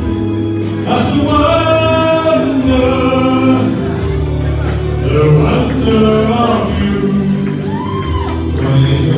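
A man singing into a hand-held microphone over backing music, with long held notes.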